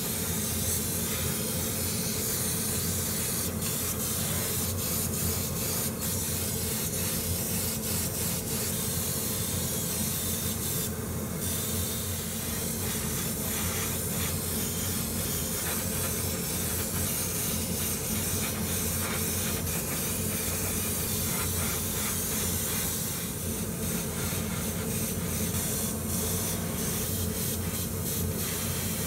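Gravity-feed airbrush spraying paint: a steady hiss of compressed air, with a steady low hum underneath.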